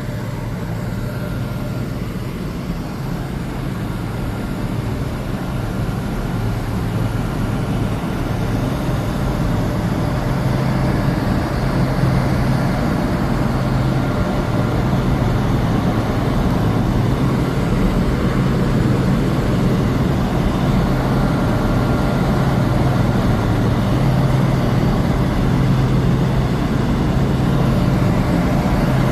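Fuel-oil burner and fans of a rotary furnace running with a steady low rumble and hiss, growing somewhat louder over the first ten seconds or so, then holding level.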